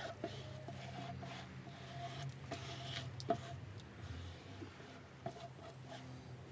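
Plastic squeegee spreading resin over fiberglass cloth on a surfboard: soft, wet rubbing and scraping strokes with a few light clicks, over a steady low hum.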